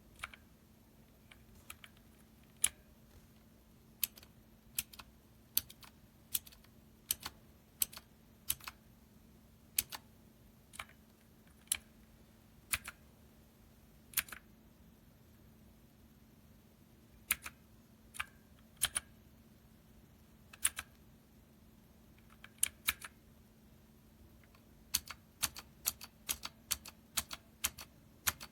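Keys on a Dierya T68SE 60% mechanical keyboard with red linear switches being pressed, one clack at a time at an uneven pace, then a quicker run of keystrokes near the end.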